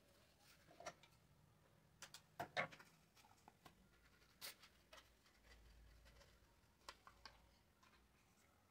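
Near silence, with faint rustling of a paper cutout and a few light clicks and taps as it is handled and fitted onto a wooden skewer; the loudest click comes about two and a half seconds in.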